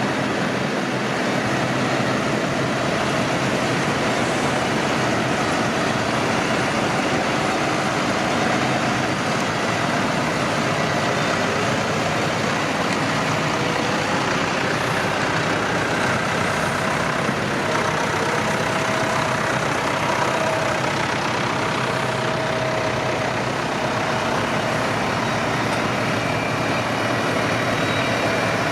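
Tractor engines running steadily, without a break.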